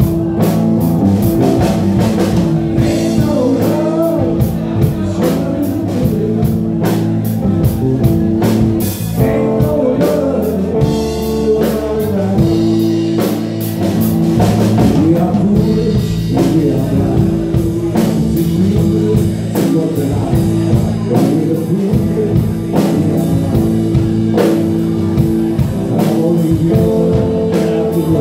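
Live blues-rock band playing: hollow-body electric guitar, electric bass and a drum kit keeping a steady beat, with a man singing at times.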